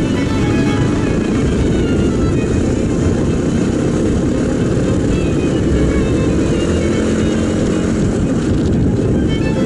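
Mondial RX3i Evo's 250 cc single-cylinder engine running as the bike picks up speed in traffic, heard under background music.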